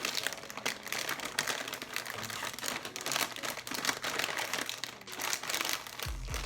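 Plastic chip bag of honey butter chips crinkling and rustling irregularly as it is handled and pulled at, someone struggling to tear it open.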